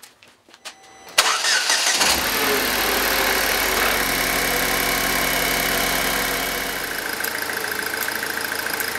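Pontiac Solstice four-cylinder engine cranking and catching about a second in, then running at a fast idle that settles to a steadier idle near the end. At that point a faint rapid rattle can be made out, which the owner traces to a worn A/C compressor whose clutch engages with the defrost or air conditioning on.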